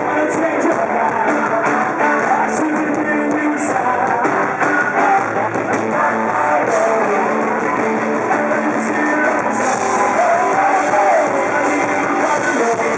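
Live rock band playing electric guitars with a singer, captured in a poor-quality amateur concert recording.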